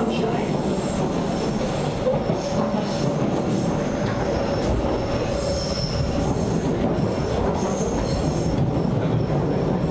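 Inside a moving Hamburg S-Bahn class 472/473 electric multiple unit: a steady rumble of wheels on rail, with thin high wheel squeals coming and going, loudest in the first two seconds and again around the middle.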